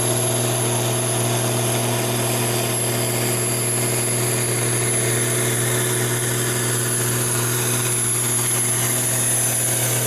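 International Harvester 955 tractor's diesel engine working under heavy load at steady revs, pulling a loaded trailer uphill.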